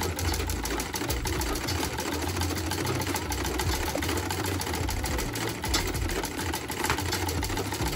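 Black Singer sewing machine stitching steadily through cloth, a fast, even clatter of the needle and mechanism.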